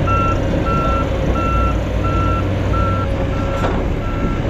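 Reversing alarm of a heavy construction machine beeping at one pitch about every 0.7 seconds, over the low, steady running of diesel earthmoving machinery; the beeps grow fainter near the end.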